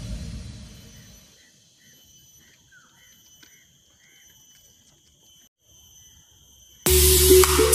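Background electronic music fades out, leaving insects' steady high buzzing and a string of about six short bird chirps. The buzzing breaks off briefly, and loud music comes back in near the end.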